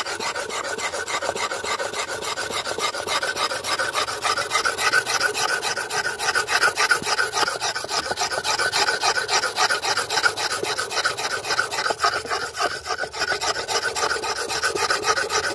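A steel scissor blade being ground on a wet whetstone: rapid, even back-and-forth scraping strokes. The blade is being ground hard to take out a nick in its edge.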